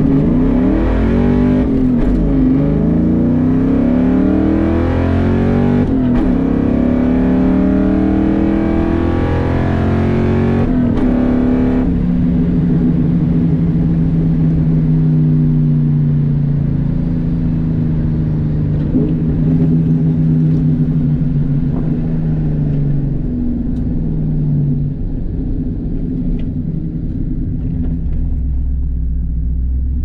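Cammed 1996 Mustang GT's 4.6-litre V8 running through long-tube headers, a catless off-road H-pipe and Borla Stinger mufflers, heard from inside the cabin. It pulls hard through the gears, with breaks in the rising engine note about two, six and eleven seconds in, then holds a steady cruise and drops to a lower rumble near the end.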